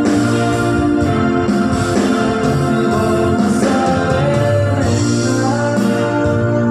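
Electronic keyboard playing a song with sustained organ-like chords over a bass line, with a voice singing along.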